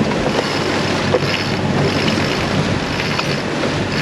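Wind buffeting the microphone and water rushing past the hull of a sailing yacht under way in a swell, over a low steady hum, with a few small knocks.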